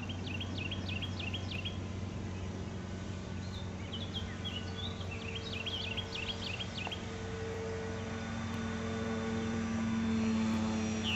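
Electric motor and propeller of a large radio-controlled foam flying-wing model plane droning steadily in flight, growing louder about ten seconds in as it passes close overhead. High chirping trills come and go several times.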